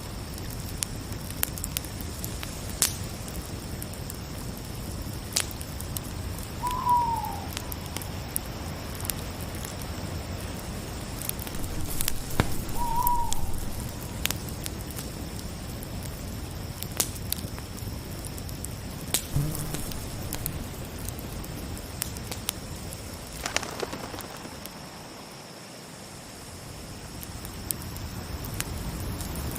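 Wood fire crackling with scattered sharp pops over a low rumble, under a steady high chirring of crickets. Two short falling calls sound about seven and thirteen seconds in, and the fire dips quieter near the end.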